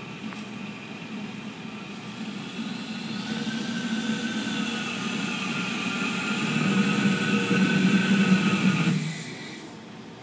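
Small homemade jet engine fed from a propane tank. It starts with a steady hum, then from about two seconds in a rushing noise and whine build to a loud peak. The sound cuts off abruptly about nine seconds in.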